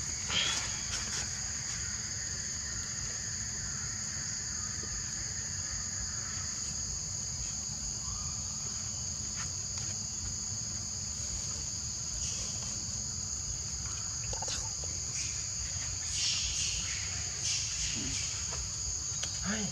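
Steady, unbroken high-pitched drone of a forest insect chorus, with a low rumble underneath.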